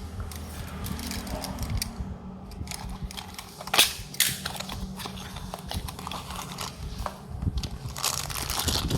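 Small cardboard toy-car boxes and a die-cast toy car being handled: scattered clicks, taps and rustles, with one louder knock a little under four seconds in, over a low steady hum.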